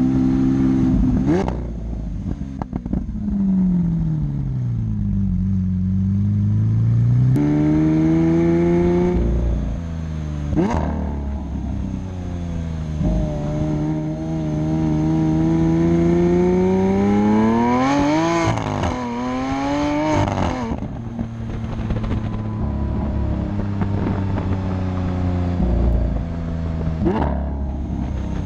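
Lamborghini Aventador's V12 with the factory race exhaust, accelerating and shifting through the gears on the road. The pitch climbs in long pulls, then drops suddenly with a sharp crack at each upshift, about five times. The pitch also falls and rises again a few seconds in.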